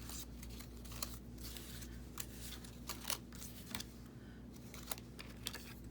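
Paper ephemera being handled on a work table: scattered light rustles and taps, over a faint steady low hum.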